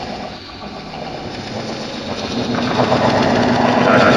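Vacuum cleaner's motor running with a loud whirring hum. It dips early on, builds louder toward the end, then cuts off suddenly.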